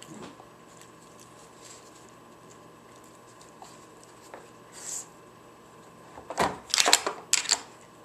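Hard plastic clattering as a dog noses and shoves at the drawers of a plastic puzzle feeder toy: a few faint knocks, then a quick run of several loud rattles over about a second and a half near the end.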